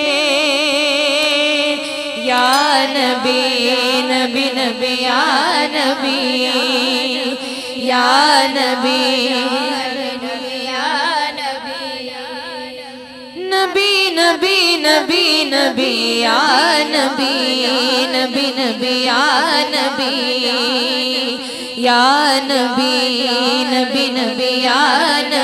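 Interlude of a naat recording: a wordless melody with heavy vibrato over a steady low drone. It thins out briefly about halfway through, then comes back louder.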